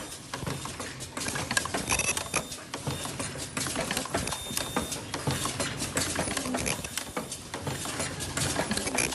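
Face-mask earloop welding machine running, with a dense, irregular mechanical clicking and clattering.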